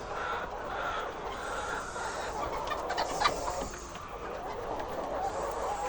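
A flock of laying hens clucking together, many calls overlapping into a steady, busy din.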